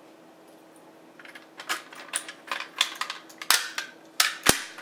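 Red plastic housing of a Notifier NBG-12LX addressable fire alarm pull station being handled and opened after it has been pulled: a run of short plastic clicks and knocks, with two louder snaps about three and a half and four and a half seconds in.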